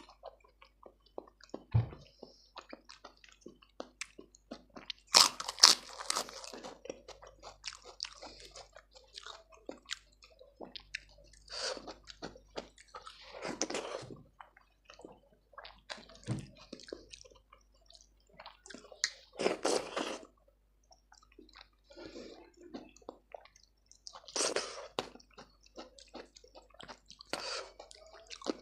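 Close-miked eating: steady chewing with small wet clicks, and louder crunchy bites every few seconds, the loudest about five seconds in.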